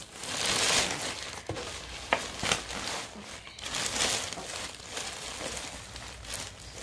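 Bubble wrap and plastic packaging crinkling and rustling as they are handled and pulled apart by hand, with a couple of sharp crackles about two seconds in.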